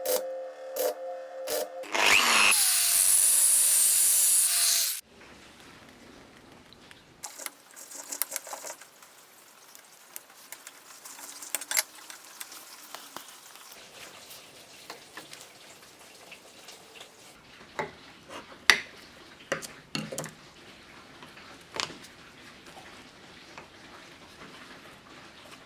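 A power tool runs loudly for about three seconds, then stops abruptly; after that come scattered knocks, taps and scrapes of hand work on the workpiece.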